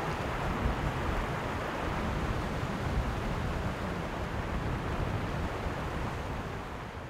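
Steady outdoor rush of wind and flowing river water, with low gusts of wind buffeting the microphone. It begins to fade near the end.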